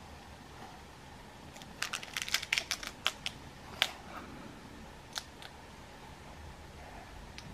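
A plastic blister card holding a pellet tin handled and turned over in the hands: a quick run of sharp clicks and crackles, then two single clicks.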